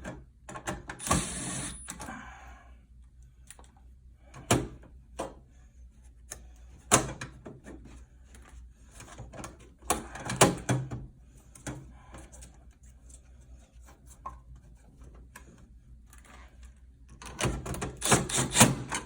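Screws being driven back into a PTAC unit's sheet-metal housing, with scattered knocks and clatter of metal parts being handled. There are short bursts of noise about a second in, near the middle and a cluster of them near the end.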